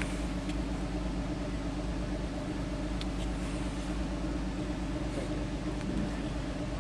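Vehicle engine running steadily at a constant pitch, with no revving.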